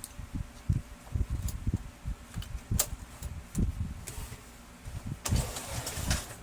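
Irregular knocks and sharp clicks from plastic laser-printer parts being handled and fitted back together, with a short scraping rustle about five seconds in.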